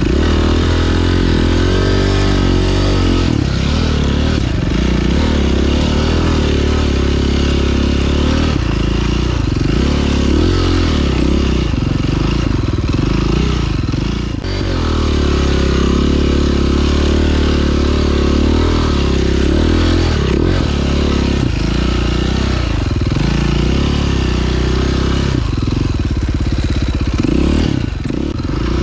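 2009 KTM 530 EXC's single-cylinder four-stroke engine running under load as the dirt bike is ridden. Its pitch rises and falls with the throttle and gear changes, briefly backing off about 14 seconds in and again near the end.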